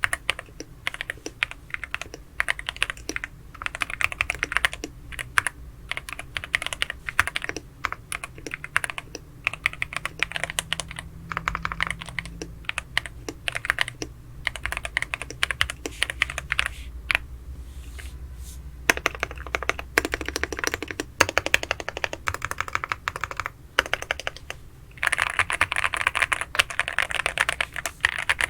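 Typing on a Sugar 65 mechanical keyboard fitted with Attack Shark Banana linear switches. Key presses come in quick runs with brief pauses, and a very fast, louder run starts near the end.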